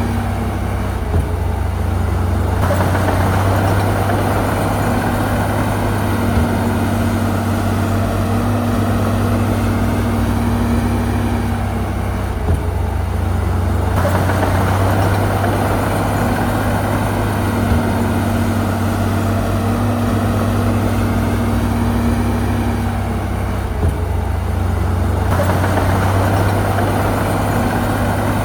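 Heavy diesel engine of earthmoving machinery running steadily, with a faint tick every five or six seconds.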